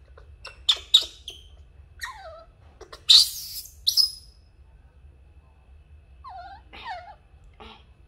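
A baby macaque crying out in a run of short high squeaks and shrill screeches, loudest about three to four seconds in, with falling wail-like cries around two seconds and again near the end.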